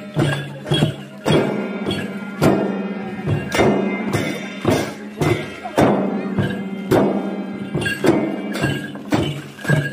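Double-headed barrel drums beaten by hand together with small hand cymbals clashing and ringing. They keep a steady processional rhythm, with a heavy beat about once a second and lighter strokes between.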